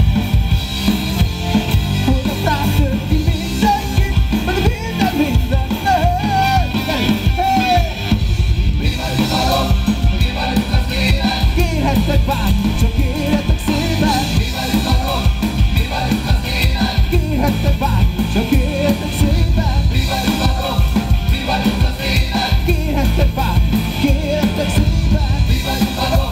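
Live rock band playing: a male singer sings into a microphone over electric guitar, keytar and drums.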